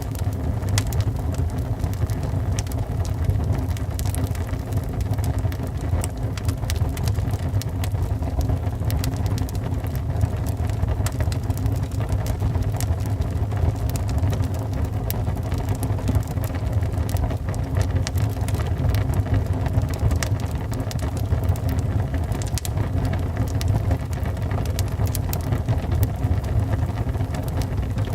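Wood fire burning in a fireplace: a steady low rumble of flames with frequent irregular crackles and pops of burning wood.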